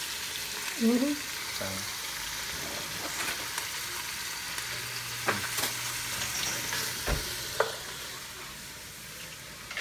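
Sliced onions and spices frying in hot oil in a pan, a steady sizzle, while a spatula stirs them and clicks against the pan a few times in the middle.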